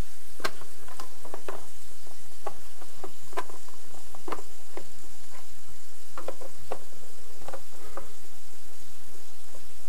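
Screwdriver clicking and scraping against a plastic circuit-breaker box: irregular sharp clicks, about one or two a second, over a steady high hiss.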